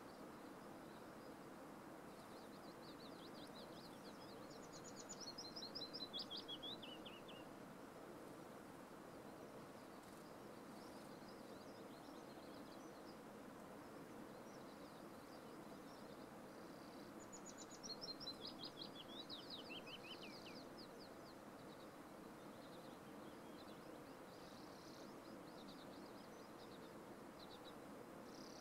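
A small songbird sings two fast trilled phrases that step down in pitch, a few seconds in and again about 17 seconds in, with a few faint scattered notes between. Under it is a faint steady outdoor hiss.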